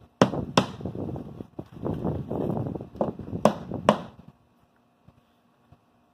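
Hammer blows setting a nail flush in fiber-cement Hardie siding: two sharp strikes near the start, then three more about three to four seconds in.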